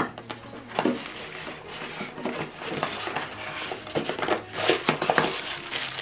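Unboxing handling noise: a sharp knock at the start, then irregular taps and scrapes of a cardboard box and its contents being handled, with a crinkling rustle of plastic wrapping through the middle and later part.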